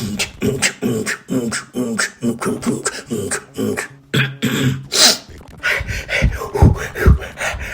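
Human beatboxing: quick vocal drum strokes with a hummed bass line, a loud hissing snare about five seconds in, and deep bass-drum thumps near the end.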